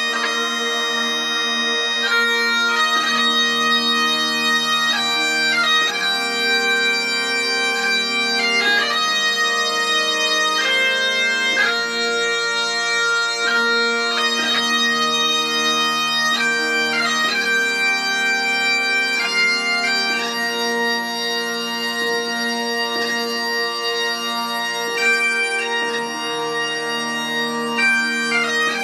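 Bagpipes playing a tune of held notes over a constant drone.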